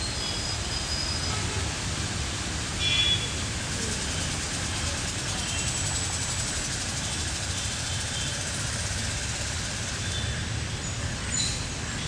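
Steady low outdoor background rumble, with a few brief high chirps on top, the loudest about three seconds in.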